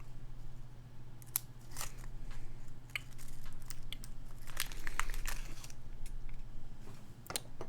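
Hands handling split keyboard kit parts: scattered small clicks, taps and rustling.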